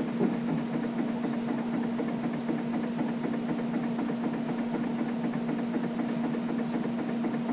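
Steady motor hum with a fine, rapid flutter, unchanging throughout.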